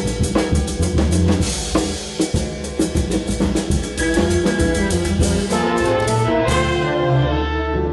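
Music with a drum kit, brass and orchestral parts, a sample generated by the EzAudio text-to-audio AI model. The arrangement shifts about halfway through, and it cuts off at the end.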